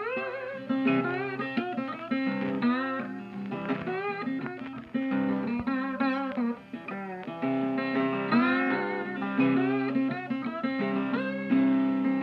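Background music: a guitar instrumental with many bent, sliding notes over steady low notes.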